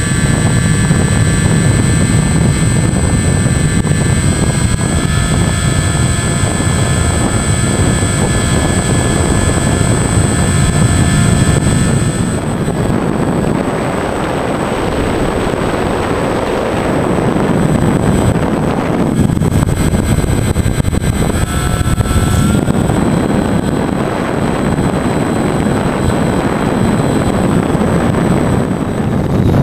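Brushless electric motor and propeller of a foam Fun Jet RC plane, heard from the onboard camera as a steady high whine over heavy wind rush. About twelve seconds in the whine drops away, leaving mostly wind noise, and it comes back in the second half.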